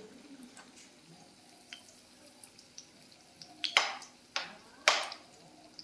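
Spatula stirring hot milk in a pan: three quick swishing strokes about half a second apart near the end, with faint ticks before them.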